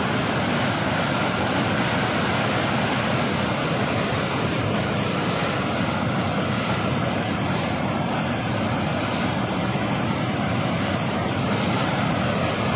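Muddy flash-flood water rushing and churning over and past a concrete weir: a loud, steady rush of water.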